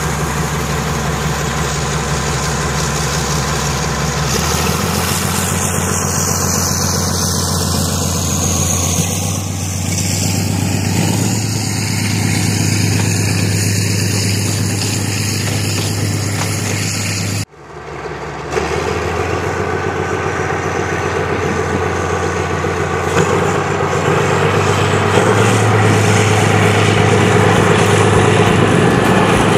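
BDZ class 77 narrow-gauge diesel-hydraulic locomotive running with a steady low engine drone as it and its coaches pull past. The sound drops out for a moment a little past halfway, then carries on slightly louder.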